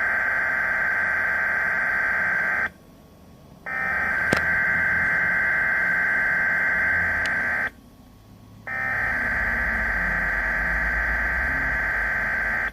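Broadcast emergency alert attention tone: a loud, steady, buzzing tone sounding in three long blasts of about four seconds each, with about a second's gap between them.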